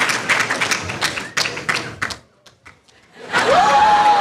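Audience applauding. The clapping thins to a few last claps about halfway, then a fresh round of applause starts with a long, held whoop that rises, holds steady and drops near the end.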